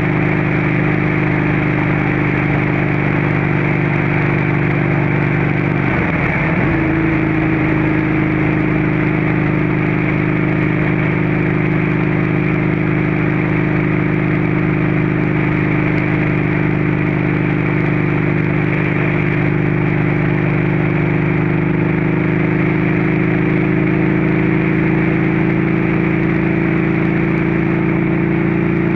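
Motorcycle engine and exhaust running at a steady cruise, with wind rushing over the microphone. The engine note dips briefly about six seconds in, then picks up again and climbs slightly near the end.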